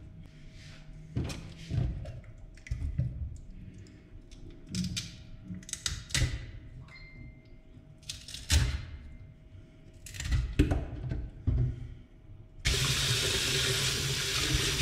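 A knife scraping and cutting at a fish over a stainless steel sink in irregular strokes and knocks. Near the end the tap is turned on and water runs steadily into the sink.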